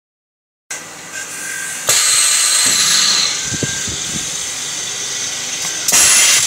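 Spin riveting machine working a rivet: a loud, steady hiss that starts about a second in, steps up sharply about two seconds in, and rises again briefly near the end.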